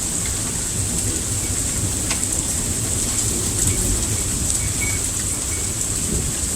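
Heavy rain pouring steadily, a dense even hiss of rain on surfaces.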